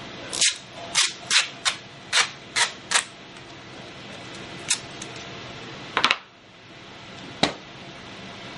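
Masking tape being pulled off the roll and torn: a quick run of sharp snaps, about seven in the first three seconds, then a few single snaps further apart, over a steady hiss.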